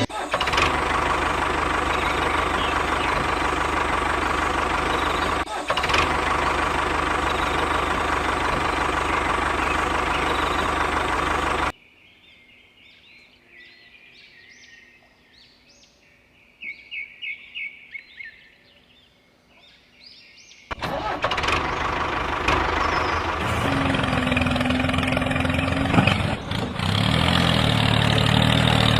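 Engine running steadily, cut off abruptly about twelve seconds in. A faint stretch of high bird-like chirps follows, and about nine seconds later the engine running starts again.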